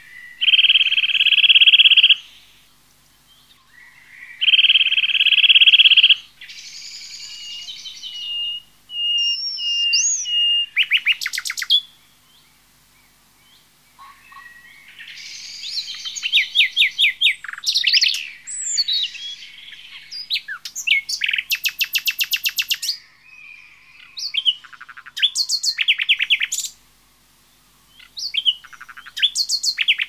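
Assorted bird calls: two long buzzing notes in the first six seconds, then whistles, chirps and rapid rattling trills that come and go in bursts.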